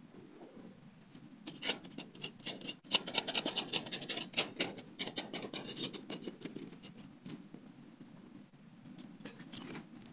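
Machete blade digging and scraping dry soil out of a small hole: a run of rapid scratchy strokes starting about a second and a half in and easing off around seven seconds, then a few more near the end.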